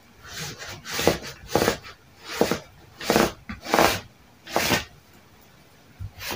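Tailor's chalk drawn across denim fabric in about seven short rasping strokes, marking a cutting line.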